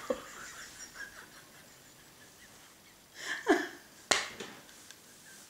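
A woman laughing almost silently, with faint wheezy breaths and a short laughing gasp that falls in pitch about three seconds in. A single sharp click about four seconds in.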